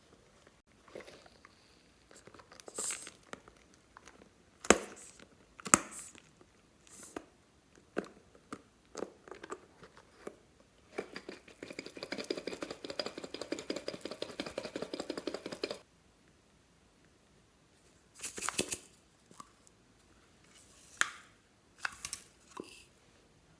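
Slime and floam being squeezed and worked by hand, making sticky crackles and pops with sharp snaps now and then. For about five seconds in the middle there is a dense, rapid crackling.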